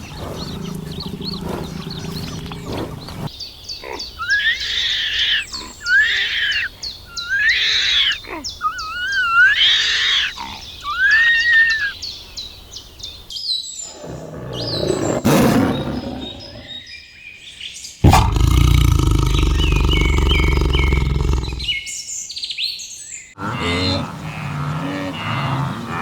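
A run of different animal calls cut one after another: high calls sliding up and down in pitch, then a deeper roar-like call and a loud, low, steady sound.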